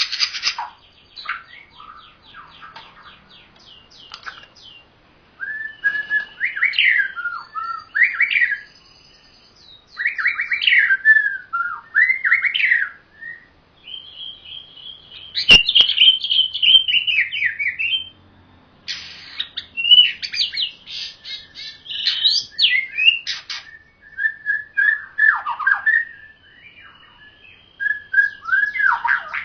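A pied starling and a white-rumped shama singing against each other in bursts of varied whistles, fast trills and harsh chattering notes, with short pauses between phrases. A single sharp click cuts in about halfway through.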